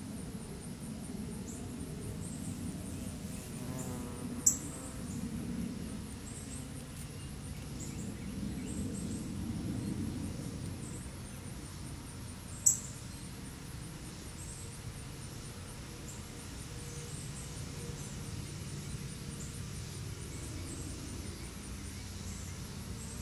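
Summer woodland ambience: a faint, steady, high-pitched pulsing insect chorus over a low background rumble. Two short, sharp high chips stand out, about four seconds in and again about twelve seconds in.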